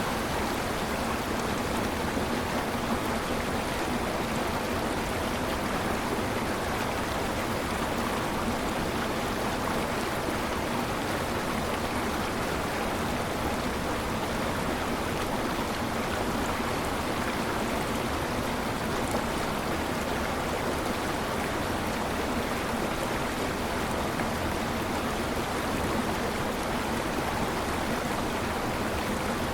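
Waterfall: steady rushing and splashing of falling water, an even, unbroken roar of noise.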